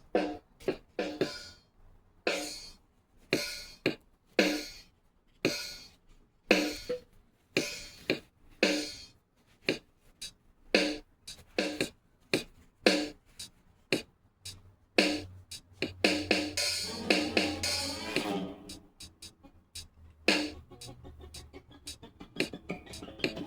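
Rhythmic percussive music made of sharp hits, about one or two a second, each with a short pitched ring. Midway the sound thickens into a busier stretch over a low hum for a few seconds, then thins back to sparse hits.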